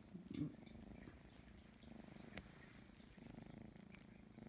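A gray kitten purring, a faint, steady purr.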